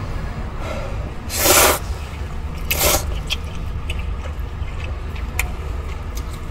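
Two loud slurps of noodles being sucked up, a longer one about a second and a half in and a shorter one near three seconds, with small clicks of eating in between and after. A steady low car hum runs underneath.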